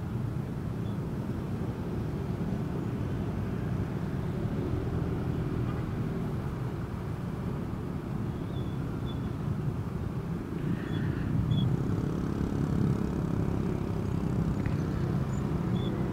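Motorcycle riding on the road: engine and road noise make a steady low rumble that swells slightly about twelve seconds in.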